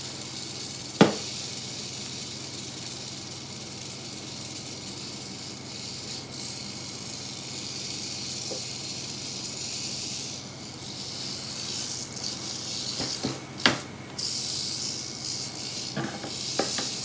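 Eastern diamondback rattlesnake rattling its tail in a steady high buzz, louder over the last few seconds: the snake's defensive warning. A couple of sharp knocks cut in, one about a second in and one near the end.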